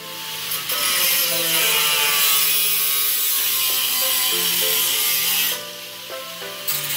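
Angle grinder with a cut-off wheel cutting through a car's rusted steel floor pan, a loud steady grinding hiss for about five seconds that stops, then starts again briefly near the end. Background music plays underneath.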